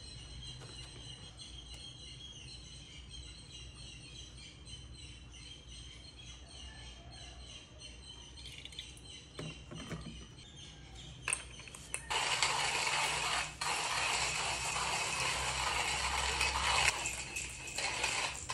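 Timemore Chestnut C2 hand coffee grinder grinding beans, a steady mechanical grinding from about twelve seconds in with a couple of brief dips. Before that there is only faint background music and a few light clicks.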